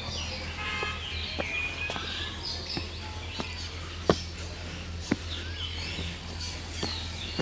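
Outdoor birds chirping and calling over and over, with the clicks of footsteps on brick and packed earth about once a second. The sharpest steps come about four and five seconds in, over a steady low rumble on the microphone.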